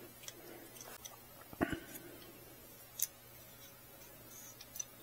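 Faint handling noises from a small motorcycle carburetor and its throttle cable being turned over in the hands: a few scattered clicks and taps, with a louder knock about one and a half seconds in and a sharp click about three seconds in.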